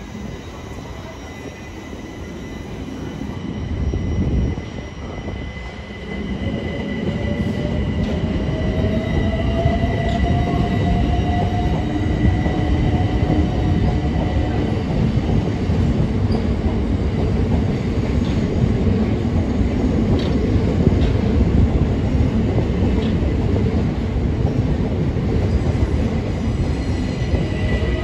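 Southeastern electric multiple-unit train running past over the tracks, with a steady wheel rumble and a thin high wheel squeal. A motor whine rises in pitch partway through.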